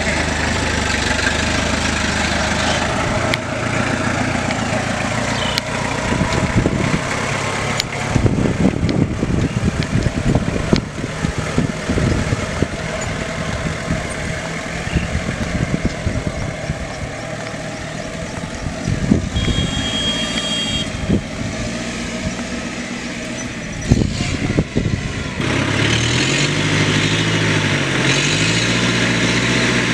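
Mahindra jeep engine running as it drives through deep mud, with irregular low rumbling through the middle. Near the end the engine revs up and down several times as it works through the muddy ruts.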